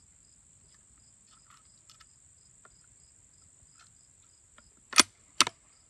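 Faint clicks of a Savage Rascal .22 single-shot rifle's bolt and cartridge being handled to reload a round that had not chambered, ending in two sharp metallic clicks about five seconds in. Crickets chirp steadily behind.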